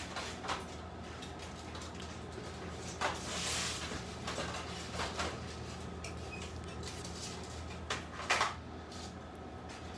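Cookware being handled on a stove and counter: scattered knocks and clatters of metal pans, with a longer rustle about three seconds in, over a steady low hum.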